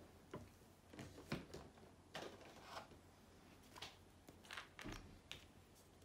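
Soft, scattered clicks, knocks and rustles of plastic squeeze bottles of acrylic paint being handled: one bottle put down and another picked up from the table.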